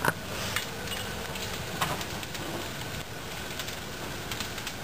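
Fire burning in a Ford F-150 pickup's engine bay: a steady rushing noise with scattered crackling pops, the sharpest just at the start and another about two seconds in.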